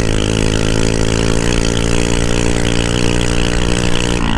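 Suzuki Shogun's single-cylinder four-stroke engine run without a muffler, held at high revs at near top speed with a steady, loud note. About four seconds in the note breaks up and changes.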